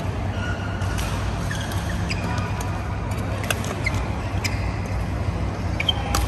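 Badminton doubles rally: sharp racket-on-shuttlecock hits every second or two, the loudest near the end, with short squeaks of court shoes on the court floor, over a steady low hum of the hall.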